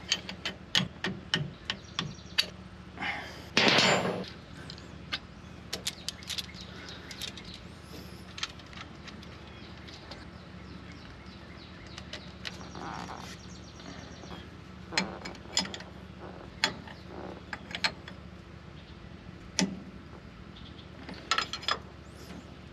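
Open-end wrench clicking and clinking on hydraulic hose fittings as they are tightened: scattered small metal ticks, with one louder scuff about four seconds in, over a faint steady hum.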